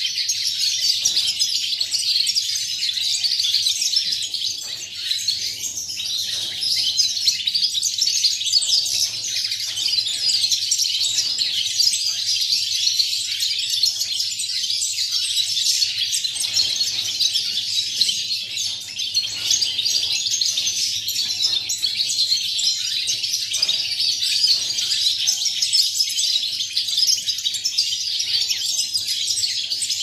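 Caged European goldfinches singing: a continuous, fast, tinkling twitter of high notes with no pauses.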